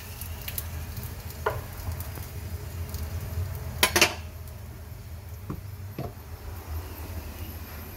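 Metal utensils clinking against cookware in a handful of separate clinks, the loudest a quick double clink about four seconds in, over a light sizzle of hot frying oil that thins out after that and a low steady hum.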